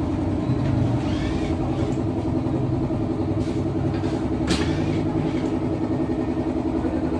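Steady mechanical hum like an idling engine, with a single light click about four and a half seconds in.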